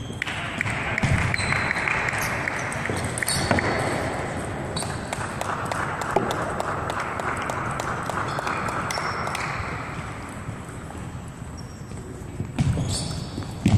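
Table tennis ball being struck by bats and bouncing on the table in rallies: a long run of short, sharp knocks, some with a brief high ping, in a large sports hall over steady background noise.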